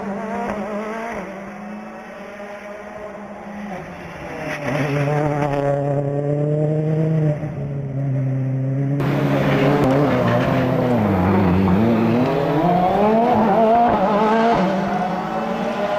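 Ford Fiesta RRC rally car's 1.6-litre turbocharged four-cylinder engine running with its revs shifting. It holds steady for about four seconds, drops lower, then gets louder about nine seconds in, dips and climbs again.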